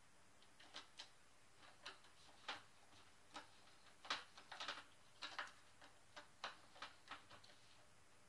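Faint, irregular small clicks and ticks of a screwdriver turning screws into an angle grinder's gear head during reassembly.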